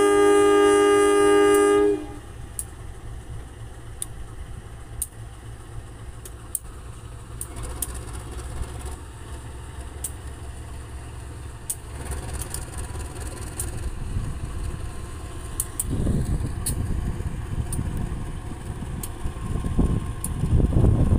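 Diesel locomotive horn sounding until about two seconds in. Then the locomotive's diesel engine runs with a low rumble as it pulls the local train away from the station, getting louder about sixteen seconds in and again near the end as it draws level.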